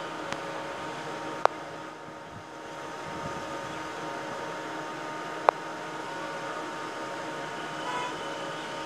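A steady hum and hiss with a few fixed tones, broken by two sharp clicks, one about a second and a half in and one about five and a half seconds in.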